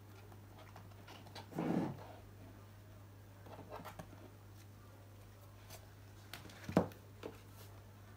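Handling noise from a paper print and a stretched canvas on a tabletop: a brief rustle and slide about two seconds in, a few light taps, then a sharp knock near the end as the canvas is turned over and set down. A steady low hum runs underneath.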